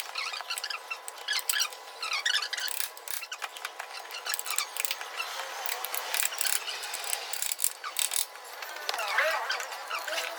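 Hand-tool work on a motorcycle wheel: scattered clicks and light metallic knocks, with short high squeaks.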